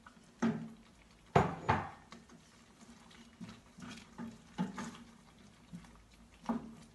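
Sliced bell pepper tipped from a plate into a stainless steel pot of thick beef stew, then stirred in with a wooden spatula. The plate and spatula knock against the pot a few times early on, with the two loudest knocks close together, followed by softer scattered taps and scraping as the stew is stirred.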